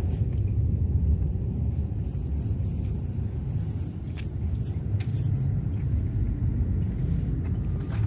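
Wind buffeting the microphone: a steady low rumble, with a few faint high chirps around the middle.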